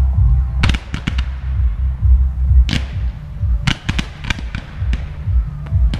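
Fireworks going off: clusters of sharp bangs and crackles about a second in, near three seconds, and again around four to five seconds, over loud music with a heavy bass beat.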